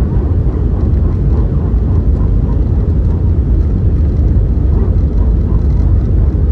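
Steady low roar of airflow and engines heard inside the cabin of an Airbus A319-100 from a seat over the wing, during the descent toward landing. The aircraft has IAE V2500 turbofans.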